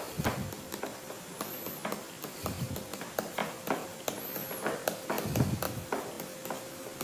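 Handwriting with a pen or marker: scattered light taps and short scratchy strokes, with a faint steady hum underneath.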